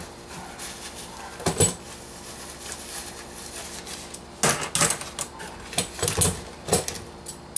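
Small metal brewing fittings clinking and clattering against each other as they are handled and lifted out of a cardboard box, in several short bursts.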